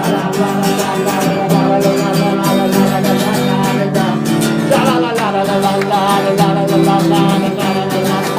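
Acoustic guitar strummed in a steady rhythm with a voice singing over it: a live solo performance of a pop-rock song.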